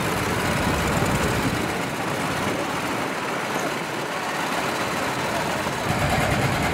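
An engine running steadily, with no change in speed.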